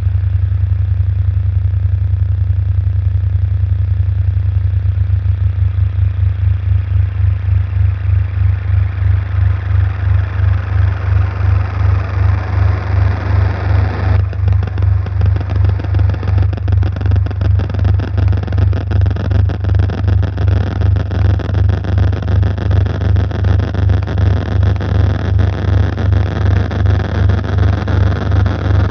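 Electronic ambient sound design: a loud low bass drone that throbs about twice a second, under a hissing noise texture that swells and turns crackly and grainy about halfway through.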